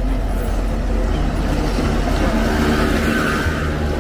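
Busy outdoor market street ambience: a steady low rumble with indistinct voices, a little louder between about one and three and a half seconds in.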